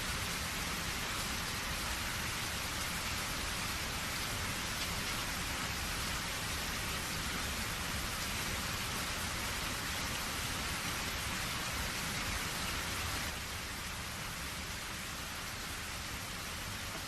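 Rain falling steadily with a dense, even hiss of drops hitting surfaces. It turns slightly quieter about thirteen seconds in.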